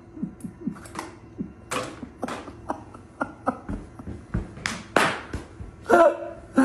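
Plastic bag crinkling and crackling in quick irregular clicks as a cat tugs it in its mouth and lets it drop by its food bowls. A short pitched call comes near the end.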